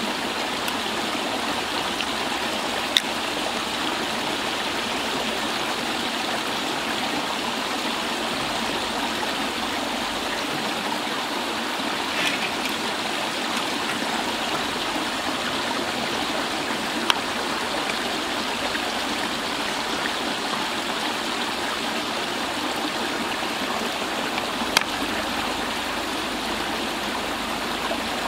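Water pouring steadily out of a drainage pipe into a canal, a constant rushing splash, with a few short clicks over it.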